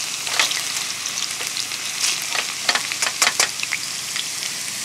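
Diced potatoes sizzling in hot oil in a stainless steel camping fry pan, a steady high hiss with sharp crackles, while a spatula turns and scrapes them in the pan. The loudest cluster of clicks comes a little after three seconds.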